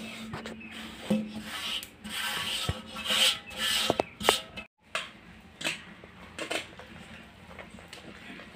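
Hands rubbing and scraping flour in a steel pot, in irregular bursts that are loudest in the first half. After a brief break about halfway, a hand mixes the flour into jaggery water for gulgule batter, more quietly.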